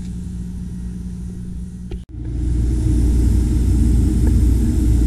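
CO2 laser engraving machine running during an engraving pass: a steady low machine hum that breaks off for an instant about two seconds in and comes back as a louder, deeper rumble.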